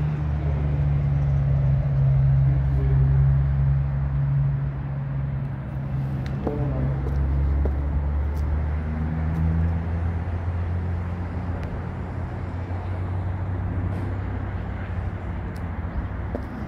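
A steady low motor drone, like an engine running, with a few faint clicks over it; the drone weakens about halfway through.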